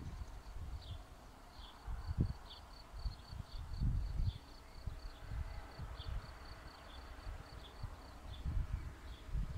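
Wind buffeting the microphone in irregular gusts. Over it, a short high tick at one pitch repeats about three times a second, with a few brief falling chirps.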